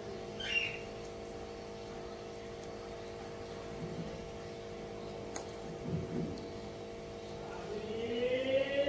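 A steady low hum with a few faint, brief handling sounds. Near the end a drawn-out rising call begins.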